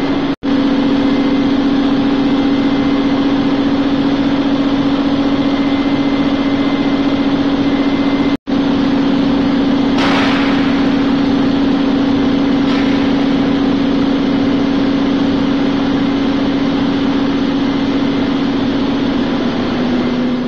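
Circular vibrating screen running empty on a test run, its electric motor driving the exciter shaft through V-belts: a loud, steady mechanical hum with a strong low tone. It cuts out for an instant twice, and there is a short hiss about halfway through.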